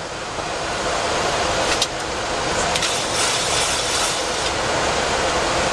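Steady rushing cockpit noise of a Boeing 737-400 climbing after takeoff, airflow and engine noise together, growing louder over the first two seconds and then holding steady. A single short click about two seconds in.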